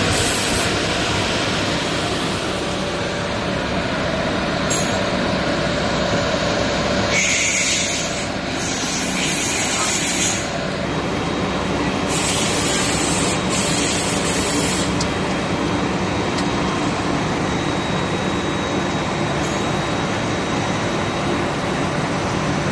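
Double-sided planer thicknesser running with a steady mechanical noise. Twice, for a few seconds each, a louder high hiss rises over it.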